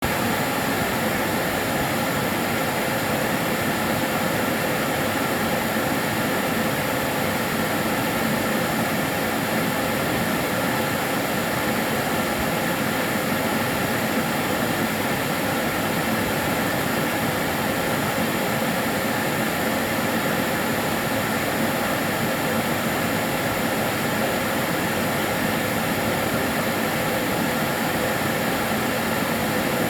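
Karcher DS 6 Premium water-filter vacuum cleaner running steadily, a constant even rushing of motor and airflow with a faint steady whine in it.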